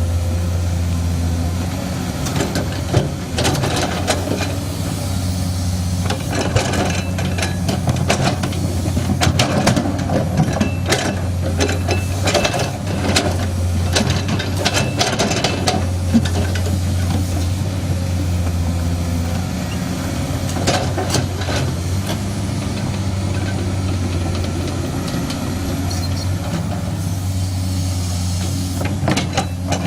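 Hydraulic excavator's diesel engine running steadily, with many sharp knocks and clatters of rock and stone against the bucket through the first two-thirds.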